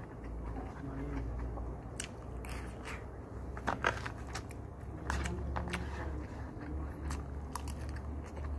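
Close-up eating sounds: chewing and biting, with sharp clicks and scrapes of a metal spoon and fork working food in a paper lunch box, the loudest click just before four seconds in. A low steady hum runs underneath.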